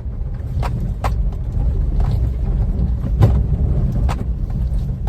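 Cabin noise of a Maruti Suzuki WagonR with about 169,000 km, driving over a rough patch of road. A steady low road and engine rumble runs under sharp rattles and knocks from the car's body and trim, about five at uneven intervals; the loudest comes a little after three seconds in. These are the wear rattles of a high-mileage car.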